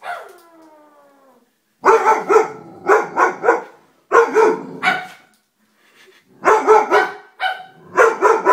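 Young Doberman giving a long whine that falls in pitch, then barking in quick groups of several sharp barks, with short pauses between the groups.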